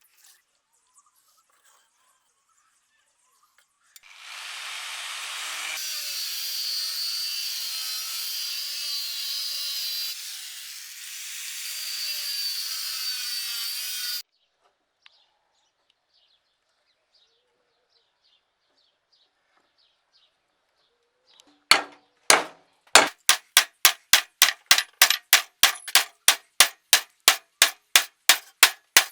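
A power tool runs against the leaf-spring steel for about ten seconds, then stops. After a pause, a hammer strikes the steel in quick, even blows, about three a second, forging it; these blows are the loudest sound.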